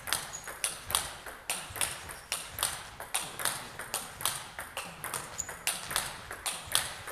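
Table tennis rally: a celluloid-type ping-pong ball clicking off the rackets and bouncing on the table in a steady, even rhythm, about three clicks a second.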